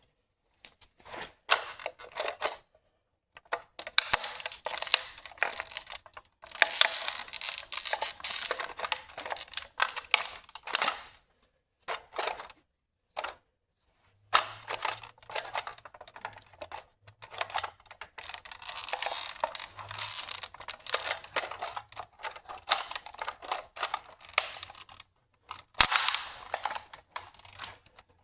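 Toy BMW X5 model car cracking and creaking under a bare foot's weight: runs of rapid crackling clicks in bursts, with a few brief pauses, as the body gives way.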